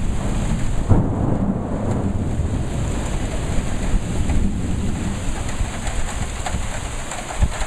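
Thunderstorm: steady rain falling, with low thunder rumbling through it, strongest about a second in.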